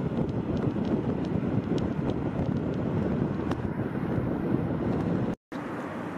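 Wind buffeting the camera's microphone: a loud, gusty low rumble with a few faint ticks. A little over five seconds in the sound cuts out for a moment and comes back as a quieter, steadier outdoor hiss.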